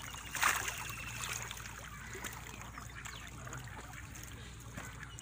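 Wet squelching and trickling water as hands pick through a mud-laden push net at the water's edge, with a slightly louder splash about half a second in. A low steady hum runs underneath.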